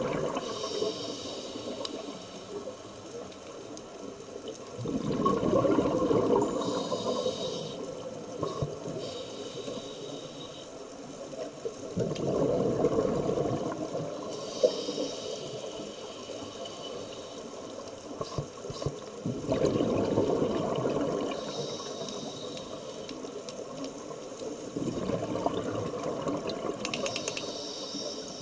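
Scuba diver breathing slowly through a regulator underwater: a rush of exhaled bubbles about every seven seconds, alternating with the high hiss of the regulator on each inhalation.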